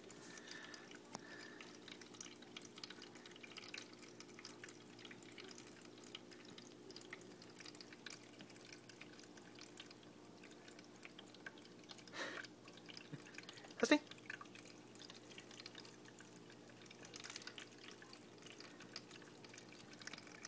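Drinkwell pet water fountain running: a steady low pump hum under water trickling and dripping from the spout into the bowl. A short sharp knock about fourteen seconds in is the loudest sound.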